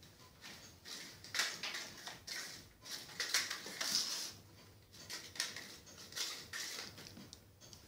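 Kittens' claws and paws skittering and scrabbling on a wooden floor as they chase and pounce: a flurry of quick scratchy clicks and scuffs, busiest in the middle.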